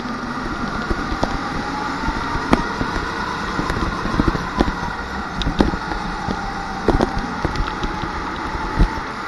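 Rental go-kart at racing speed, recorded on board: its motor runs continuously, the pitch rising and falling with the throttle through the corners, with frequent sharp clicks and knocks from the chassis.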